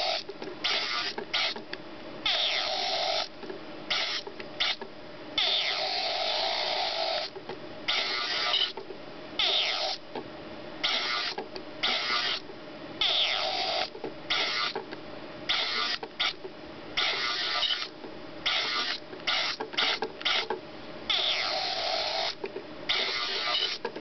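Zibits miniature remote-control robot's tiny geared motor whirring in short on-off bursts as it is driven forward and backward, from a fraction of a second to about two seconds each, with brief pauses between.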